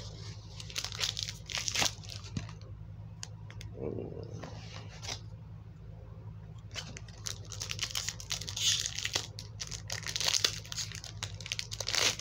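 Foil wrapper of a Pokémon card booster pack being torn and crinkled in the hands, in irregular crackling rustles, busiest in the first couple of seconds and again through the last five.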